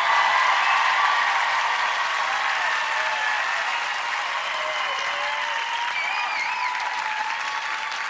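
Large studio audience applauding and cheering, with scattered whoops and shouts over the clapping; it swells in the first second and then holds steady.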